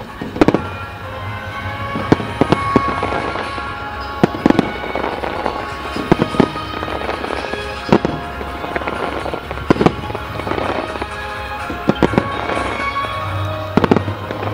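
Aerial firework shells bursting: a dozen or more sharp booms at irregular intervals. Music plays steadily underneath.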